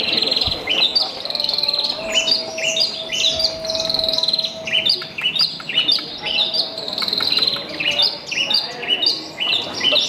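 Javan bush lark (branjangan) singing: a fast, unbroken stream of short chirps and quick rising notes, with a few longer trilled notes mixed in.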